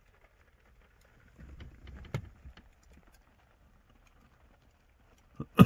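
A few knocks and soft clatter inside a car cabin, a small cluster about two seconds in, then one sharp, much louder knock right at the end.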